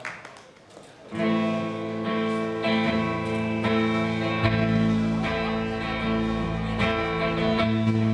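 Live rock band starting a song: after about a second of quiet, electric guitars ring out in sustained chords, and the bass comes in about four seconds in.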